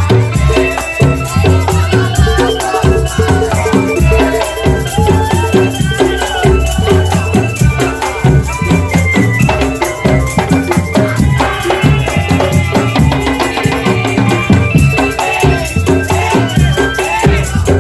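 Drum band playing loud music: heavy, rhythmic drum beats with rattling percussion and a melody line over them.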